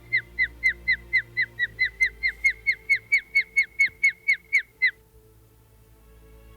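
Osprey calling: a rapid, even series of short, high whistled chirps, each slurring downward, about four or five a second, that stops about five seconds in. Faint background music runs underneath.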